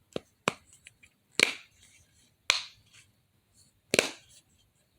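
Bubbles of a pop-it fidget toy being pushed through one at a time: five sharp pops at uneven intervals. The bubbles are a little stiff to push out.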